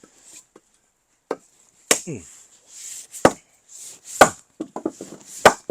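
Axe blows splitting firewood logs: about five sharp chopping strikes, the first one lighter, with small clatters of split wood in between.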